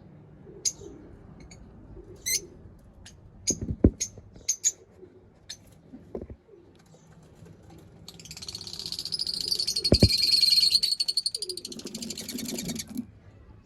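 Lovebirds chirping: scattered sharp, high chirps, then a loud, rapid chattering call starting about eight seconds in and lasting about five seconds. Two brief low thuds sound along with them.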